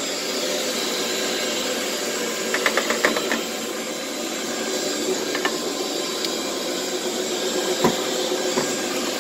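Carpet scrubbing machine running steadily as it is pushed over carpet, its brush working the pile. A quick run of clicks comes about three seconds in, and a single knock near the end.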